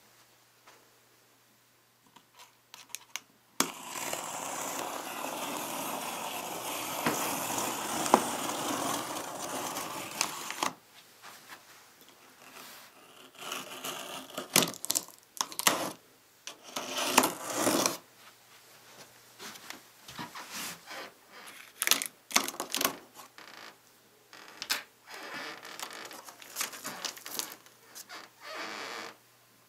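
A box cutter drawn along the taped seam of a cardboard box, a steady scraping slit lasting about seven seconds. It is followed by irregular scrapes, knocks and rustles as the cardboard flaps and packaging are handled.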